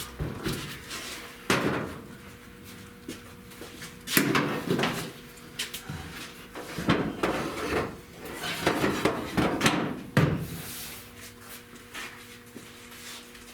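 Irregular knocks, clunks and rattles of tools and parts being handled during body work on a car panel, loudest about a second and a half in and again about four seconds in, over a faint steady hum.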